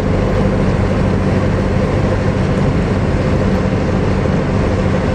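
Car running, heard from inside the cabin: a steady engine hum and rumble.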